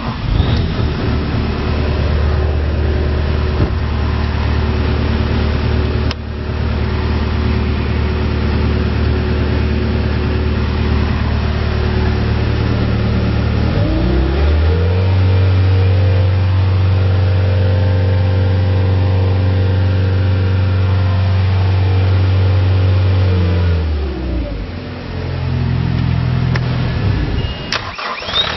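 Bobcat T190 compact track loader's diesel engine running at a steady low speed. About halfway through it revs up smoothly, holds at the higher speed for about ten seconds, then drops back to the lower speed.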